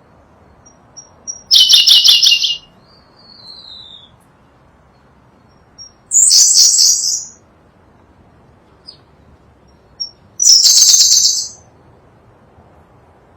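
Sunda blue robin singing: three short, loud, rapidly trilled high phrases about four seconds apart, each preceded by a few thin high notes. A soft falling whistle follows the first phrase.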